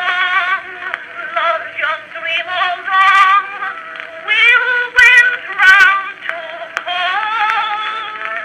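A woman singing a popular song with vibrato, played back from an Edison Blue Amberol cylinder record. The sound is narrow and boxy, with nothing above about 4 kHz, and there are a few clicks about five seconds in.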